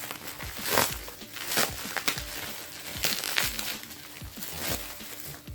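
Crinkly packaging being handled and unwrapped, rustling and crackling irregularly, with sharper crackles about a second in, near the middle and near the end.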